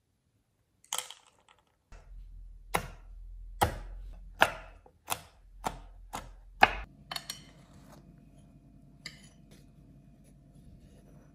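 Chef's knife chopping pistachios on a bamboo cutting board: a knock about a second in, then about seven sharp chops coming a little faster, followed by a few soft clicks over a faint low hum.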